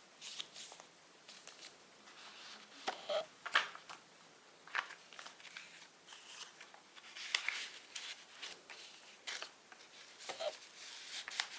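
Paper rustling with scattered soft clicks and taps as a small handmade paper notebook is handled and its pages are turned.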